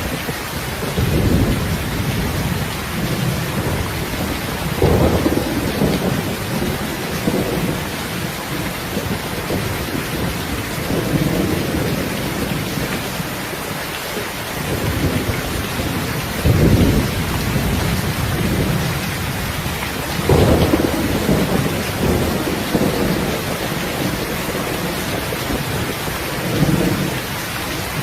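Steady heavy rain hiss, with short low rumbles swelling up every few seconds.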